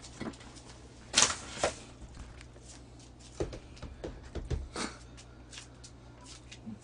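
A few short, sharp clicks and rustles of things being handled, the loudest pair about a second in, over a low steady hum.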